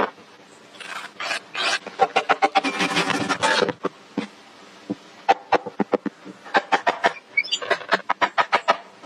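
Hand-tool woodworking: a series of sharp wooden knocks and taps, with a stretch of rasping scraping about two to three and a half seconds in and quick runs of taps near the end.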